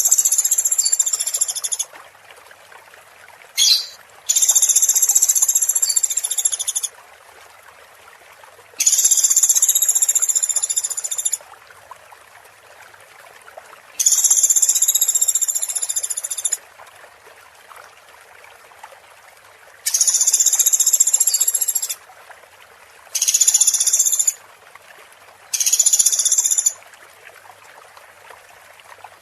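A high, buzzing animal trill in repeated bursts, most about two to three seconds long with a few shorter, every five or six seconds. Between the bursts a steady hiss of running water carries on.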